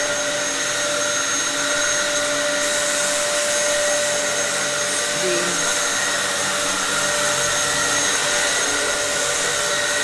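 Dyson upright vacuum cleaner running steadily, an extremely loud high whine of motor and airflow.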